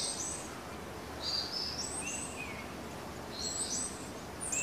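Small songbirds chirping in a forest: three short phrases of high notes that step up and down, over a faint steady hiss of woodland background.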